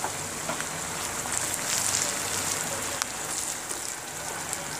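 Onions, ginger-garlic paste and whole spices frying in oil in a nonstick pan, sizzling steadily as tomato purée is stirred in, with a few faint clicks.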